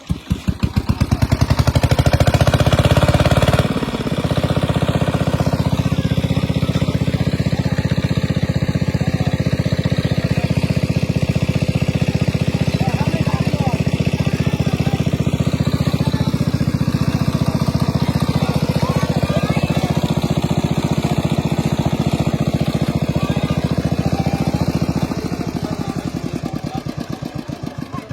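A small engine running steadily with a fast, even firing beat; it starts abruptly, drops slightly in level about four seconds in, and fades away over the last few seconds.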